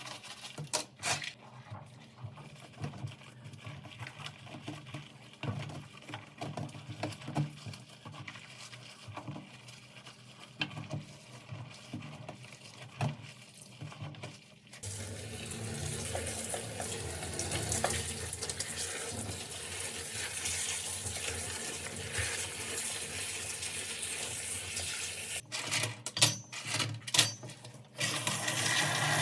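Small plastic pieces, likely keyboard keycaps, clicking and clattering, then from about halfway a steady rush of running water, with a few more sharp clicks near the end.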